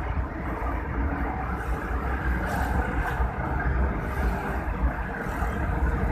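Steady low rumble of road and engine noise heard from on board a vehicle cruising along a highway, with a couple of short hisses a few seconds in.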